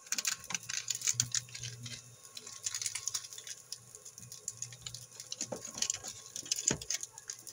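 Plastic seasoning sachet crinkling and crackling in the hands as it is handled and torn open: many small sharp crackles in quick succession. A faint steady hum runs underneath.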